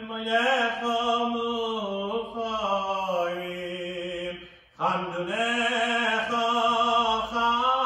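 A male cantor chanting liturgy solo and unaccompanied, holding long notes with gliding turns between pitches. He pauses briefly for breath about two-thirds of the way through.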